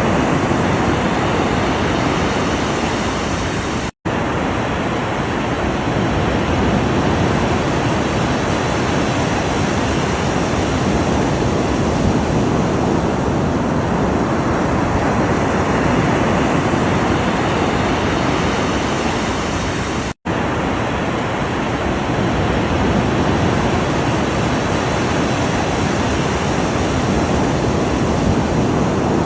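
Ocean waves breaking in a continuous, steady rush of surf, with slow swells in the wash. The sound drops out for a split second twice, about four seconds in and again near twenty seconds.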